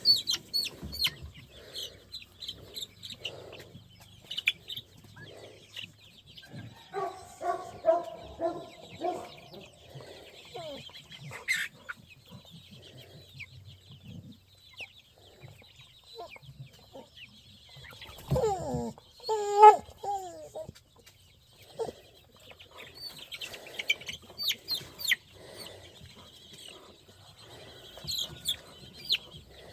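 Chickens clucking, with many short high chirps throughout. A louder, drawn-out squawk rises and falls about two-thirds of the way through.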